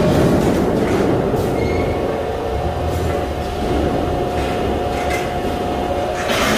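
Fabrication-shop machinery running with a steady hum over a low rumble, with sheet metal scraping and clanking a few times as it is handled.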